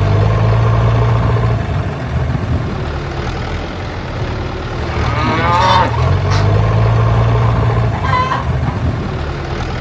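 Motor of a small DIY model tractor running with a steady low drone, swelling near the start and again from about six to eight seconds.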